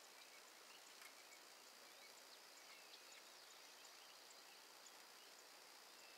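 Near silence: faint outdoor background with scattered faint bird chirps.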